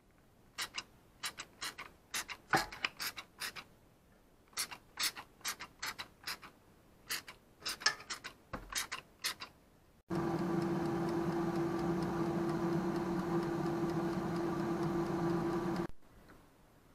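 Irregular sharp clicks and crackles for about ten seconds, then an air fryer running with a steady fan hum and low drone that starts suddenly and cuts off abruptly about a second before the end.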